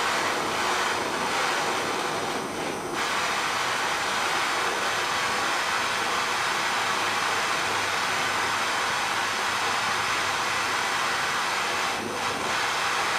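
Blow lamp flame burning with a steady hiss while it heats a thin phosphor bronze rod. The hiss dips briefly near the end.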